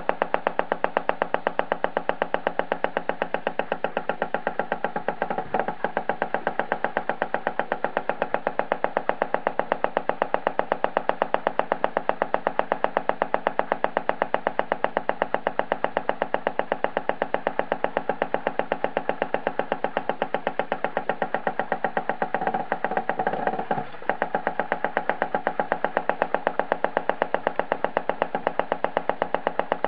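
Greiner Vibrograf B200A watch timing machine running a watch test: rapid, perfectly even ticking at several beats a second over a steady hum.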